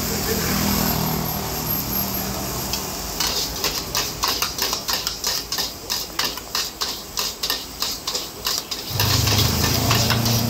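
Metal ladle and spatula clanking and scraping rapidly against a wok while stir-frying rice noodles, about four strikes a second. A vehicle engine hums underneath at the start and louder near the end.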